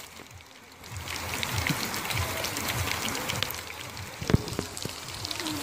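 Steady patter of rain, with one sharp knock a little after the middle.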